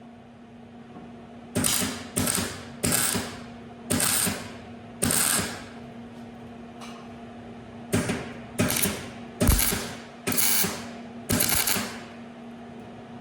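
MIG welder laying short tack welds to stitch a steel outer rear arch panel, about ten brief bursts of crackle, each cut off after about half a second, with a pause midway. A steady hum runs underneath.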